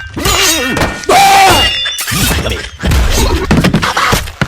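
A dense jumble of many sound effects stacked on top of each other, switching abruptly about every second: thuds and crashes, something shattering, and snatches of voices and music.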